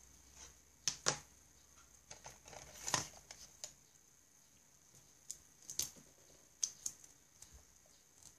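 Small desk-handling sounds: a few sharp clicks and knocks as pens are put down and picked up, with light pen strokes on paper at the start.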